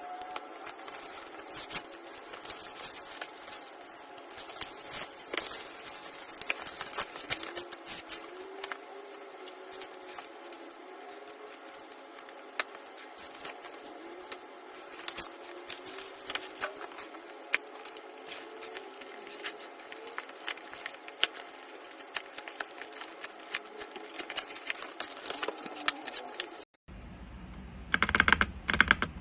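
Typing on a ZIFRIEND ZT104 gasket-mount mechanical keyboard with silent switches: a continuous run of quick key clicks. Near the end there is a brief dropout, after which the typing is louder and fuller.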